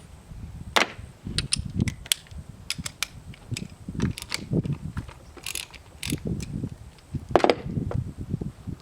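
Hand tools at work on an outboard motor during starter removal: irregular sharp metallic clicks and clinks, with low knocks and handling noise between them, the loudest clicks about seven and a half seconds in.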